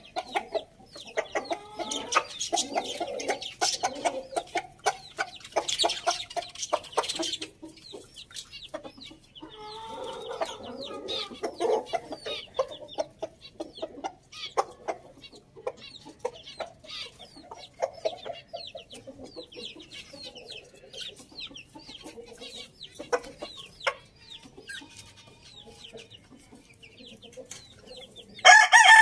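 Chickens clucking and calling, with many short, sharp clucks scattered throughout. Just before the end, a rooster starts a loud crow.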